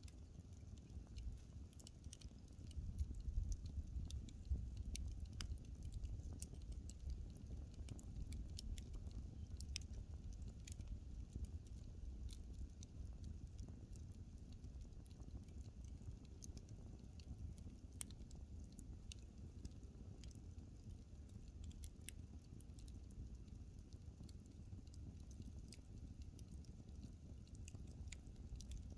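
Wood fire burning: scattered sharp crackles and pops of the burning wood over a low, steady rumble of the flames, slightly louder a few seconds in.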